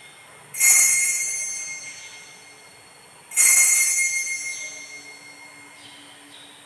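Altar bell struck twice, about three seconds apart, each stroke ringing out and fading; it marks the elevation of the chalice at the consecration.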